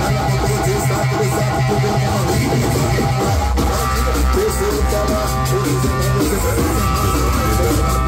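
Loud music with guitar, drums and heavy bass played through a paredão car-audio speaker wall. The bass line changes about three and a half seconds in.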